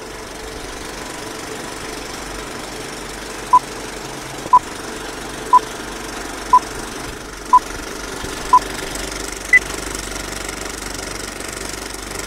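Film-projector clatter sound effect under a countdown leader: a steady mechanical rattle, with six short beeps one a second and then a seventh, higher-pitched beep a second after the last.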